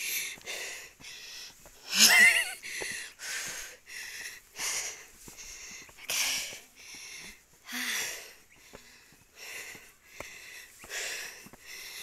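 Heavy, rapid breathing close to the microphone, about two breaths a second, from a person out of breath while climbing steep steps. A short, louder voiced breath comes about two seconds in.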